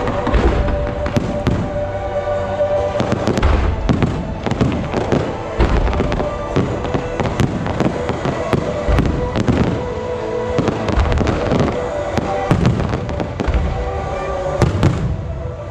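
Aerial fireworks shells bursting in rapid, irregular succession: a dense barrage of sharp bangs and crackles with deep thuds, over steady music.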